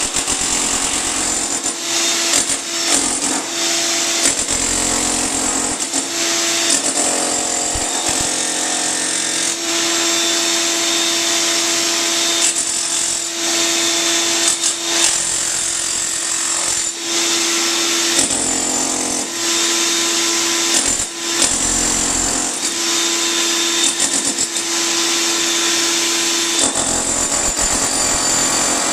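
Jackhammer breaking up a concrete floor, hammering steadily with a few brief stops and restarts.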